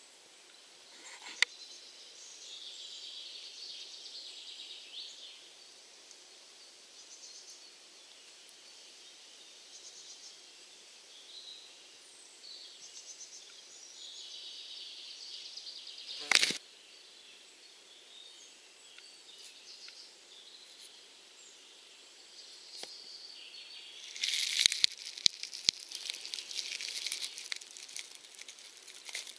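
Quiet forest-floor ambience with faint, distant bird chirps, broken by one sharp knock about halfway through. Over the last few seconds there is a burst of dense crackling and scratching close to the microphone, from soil and litter being disturbed.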